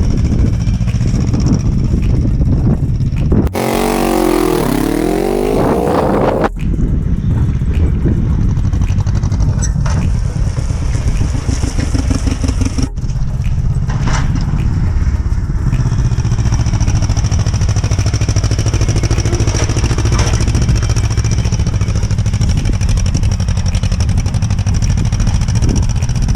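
1953 John Deere 40's two-cylinder engine running steadily, a loud, even drone. About three and a half seconds in, a different loud, noisy sound with sweeping pitches lasts about three seconds.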